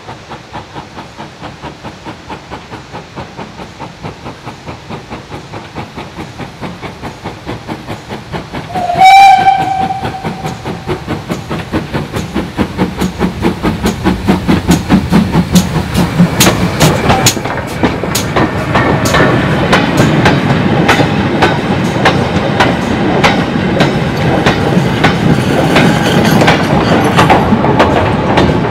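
GWR Manor class 4-6-0 steam locomotive No. 7820 Dinmore Manor working a short goods train, its rhythmic exhaust beats growing louder as it approaches. It gives one short blast on its whistle about nine seconds in, the loudest sound. As the locomotive passes, the goods wagons' wheels click over the rail joints.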